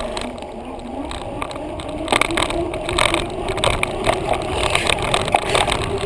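Bicycle being ridden with a handlebar-mounted camera: a low rumble of wind and rattle, and a whirring hum that rises over the first second and then holds steady.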